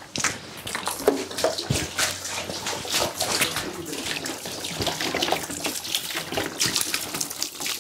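Water sloshing and splashing as a plastic can is dipped into and tipped over a tub, in irregular pours with scattered knocks.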